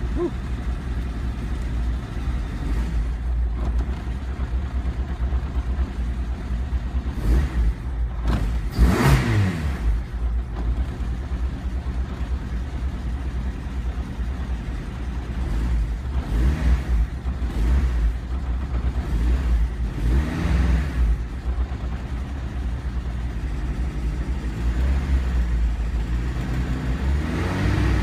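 Freshly rebuilt Honda D16A8 1.6-litre four-cylinder engine in a CRX idling steadily, heard from inside the cabin, with several short rev blips, the strongest about nine seconds in.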